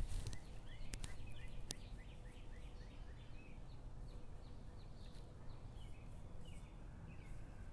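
Small birds chirping in quick, short, high twitters throughout, over a faint steady low background rumble. Two light clicks sound within the first two seconds.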